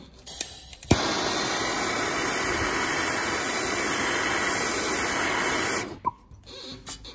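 Handheld gas blowtorch lighting with a sharp click about a second in, then burning with a steady hiss for about five seconds before it is shut off. The torch is heating a car radiator's top tank to soften the old solder so it can be wire-brushed off.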